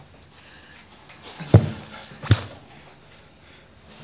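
Two heavy blows struck with a walking stick, thudding about three quarters of a second apart, the first with the deeper thump.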